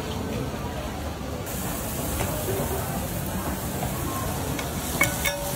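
Squid rings, shrimp and vegetables sizzling as they fry in a pan, with a steady hiss that grows brighter about a second and a half in. Near the end there are two sharp metal clinks.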